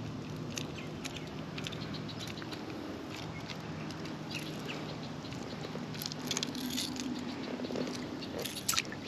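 Scattered light clicks and patters from handling a freshly landed small largemouth bass and a lipless crankbait, a few sharper clicks near the end. Underneath runs a low steady drone of distant road traffic.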